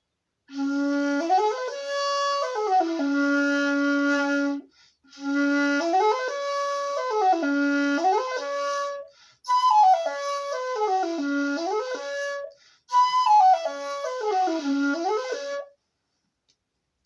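Shakuhachi played solo: four short melodic phrases with brief breaths between them, the notes stepping up and back down over a low held tone.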